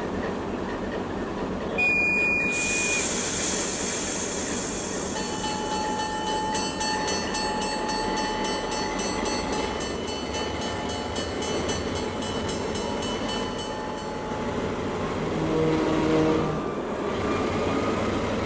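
Diesel locomotive departing a station: a short high whistle tone about two seconds in and a burst of air hiss, then the locomotive bell ringing with steady strikes for about nine seconds, and a brief horn blast near the end, all over the engine's low rumble.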